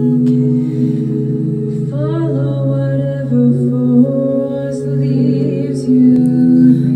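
Ambient trance music: long-held low drone chords under a sung vocal line that slides into and sustains long notes.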